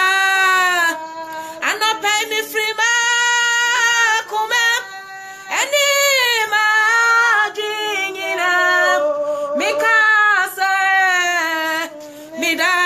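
A woman singing a gospel song solo and unaccompanied, holding long notes and sliding between them, with short pauses for breath.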